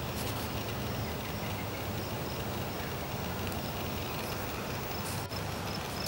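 Steady outdoor background noise with a low hum, and faint short high chirps repeating throughout.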